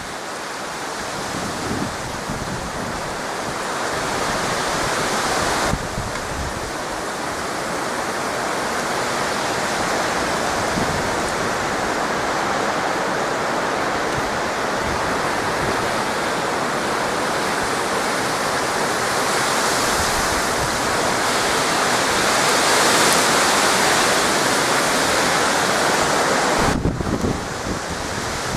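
Gusty wind blowing hard, a steady rushing noise that swells to its strongest a little after twenty seconds in, with wind buffeting the microphone in low thumps near the end.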